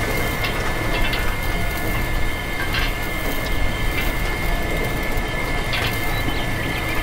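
Miniature model threshing machine driven by a small electric motor through a string belt, running: a steady high whine over a continuous rattle, with a few sharp clicks.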